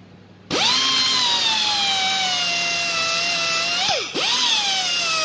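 Hand-held power tool spinning a yellow 3M Roloc Bristle disc against a car's wheel-arch panel, scrubbing off paint and rust down to bare metal. The tool starts about half a second in and whines up to speed over a scratchy hiss, the pitch sagging a little under load. About four seconds in it briefly slows and spins back up.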